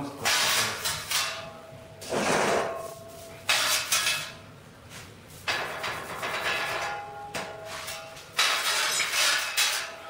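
Old paintbrush sweeping ash from a metal stove ash pan into a galvanized bucket: about five scraping strokes, each about a second long, with the metal pan and bucket ringing and clinking.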